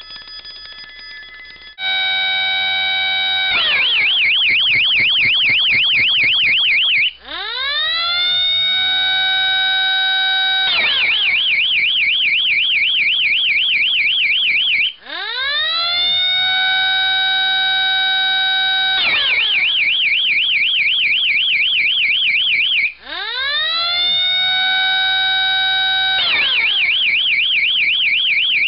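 Homemade alarm's siren and bell switched in turn by a motor-driven cam wheel. Each cycle a tone rises in pitch and holds steady, then gives way to a fast warbling ring, with a brief dropout between. The cycle repeats about every eight seconds.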